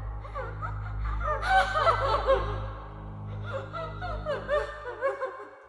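A person laughing in breathy, wavering bursts, loudest about a second and a half in and fading toward the end, over a low steady music drone.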